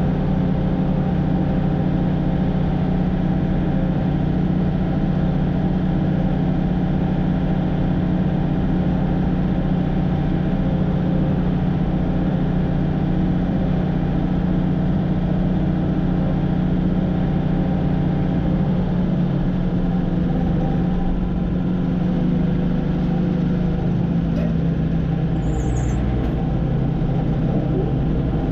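Combine harvester running steadily while cutting soybeans, its Perkins 354 six-cylinder diesel engine under load, with the note shifting slightly lower about two-thirds of the way through.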